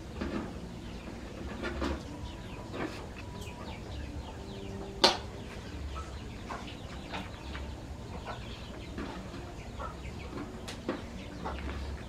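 Rustling and soft taps of hands folding leaf-wrapped food parcels on a metal tray, with one sharp click about five seconds in. Chickens cluck now and then.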